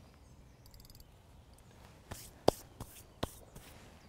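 Fishing rod and reel being handled: a brief run of fine, rapid ticking, then a handful of sharp clicks and knocks in the second half, two of them louder than the rest.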